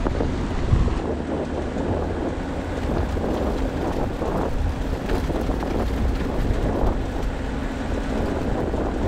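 Mercedes-Maybach G 650 Landaulet's twin-turbo V12 running steadily as it drives along a dirt road, with tyre rumble and heavy wind buffeting on the microphone.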